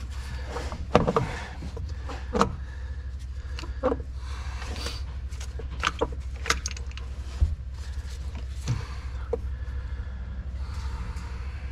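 Scattered clinks, knocks and rubbing of hand tools and metal parts being handled during a tractor transmission teardown, over a steady low hum.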